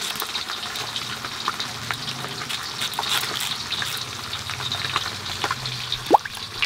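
Raw new potatoes being cut on a boti blade, the crisp flesh cracking and splitting with a run of short crunches and crackles. About six seconds in, cut pieces drop into a bowl of water with a plop.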